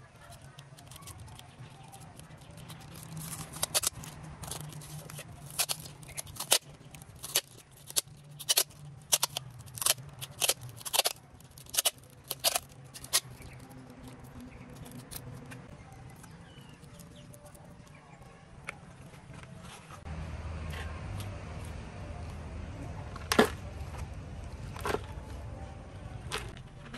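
Clear plastic tape being pulled off its roll and wrapped tight, a quick run of sharp crackling rips lasting about ten seconds. Near the end, a small trowel scoops loose dry soil, with two sharper scrapes.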